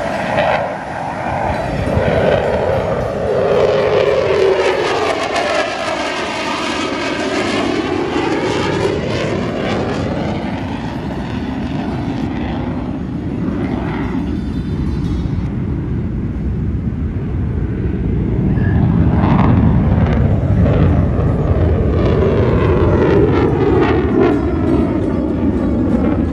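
F-16 fighter jet flying past, its engine noise swelling and fading with a sweeping whoosh that rises and falls in pitch. After a lull in the middle, the noise builds again on a second pass.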